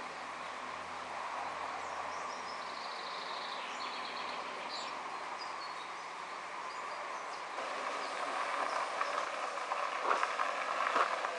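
Birds chirping over a steady outdoor hiss; a little past halfway a small car drives up a gravel forest road toward the listener, its tyres crunching and crackling on the loose gravel and getting louder.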